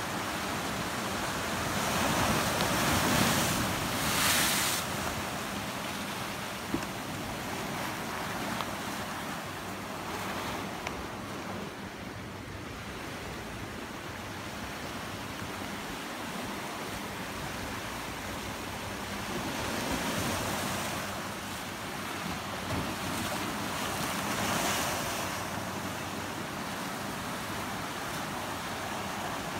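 Sea surf breaking and washing over dark rocks and a boulder shore: a continuous rushing hiss that swells louder as bigger waves break, a few seconds in and twice more in the second half.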